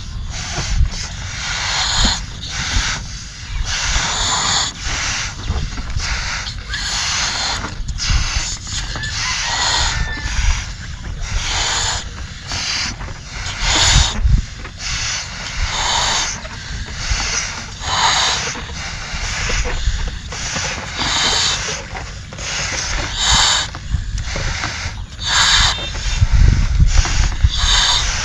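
Several children blowing up rubber balloons by mouth: repeated breathy puffs of air, about one or two a second, over a steady low rumble.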